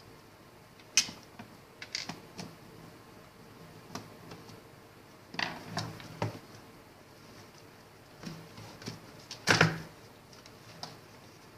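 Scattered clicks, taps and knocks of a plastic remote-control transmitter case and its parts being handled and opened by hand, the loudest cluster about two seconds before the end.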